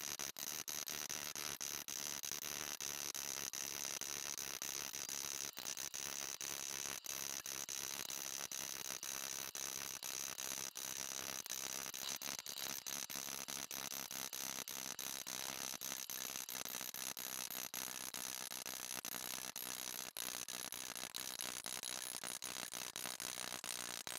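Small hammer tapping a thin fine-silver cup on a steel stake, sped up into a fast, even rattle of tiny metallic clicks.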